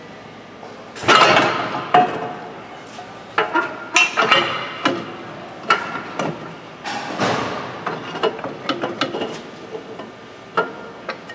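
Irregular metal clanks and clinks as a steering knuckle assembly with a new hub, bearing and pressed-steel splash shield is knocked and wiggled against the suspension while being fitted. Some knocks ring briefly, and the loudest come about a second in.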